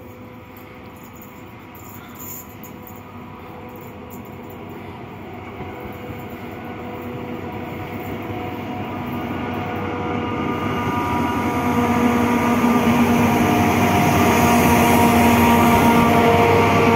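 Two Captrain class 335 (Vossloh Euro 4000) diesel-electric locomotives working in tandem at the head of a freight train, approaching and passing close by. The engines' steady drone and the rolling noise grow louder throughout and are loudest near the end as the locomotives go past.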